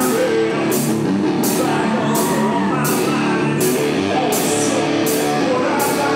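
Loud rock music with electric guitar and drums keeping a steady beat.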